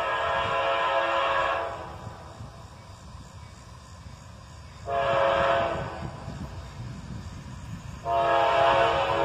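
Air horn of an approaching CSX freight train's lead GE AC44CW locomotive blowing a multi-note chord: a long blast ending under two seconds in, a short blast about five seconds in, then another long blast starting near the end. The long–short–long run is the grade-crossing warning pattern. A low rumble of the approaching train runs underneath.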